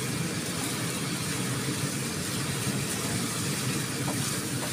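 Stir-frying in a wok: a steady sizzle and hiss from shrimp, corn and snap peas in hot oil as a spatula turns them, over a steady low hum.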